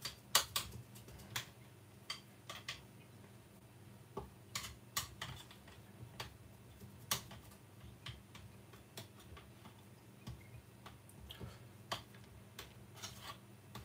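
Metal spoon clicking and scraping against a stainless-steel ring mould while pressing mashed potato into it: faint, irregular taps a few times a second.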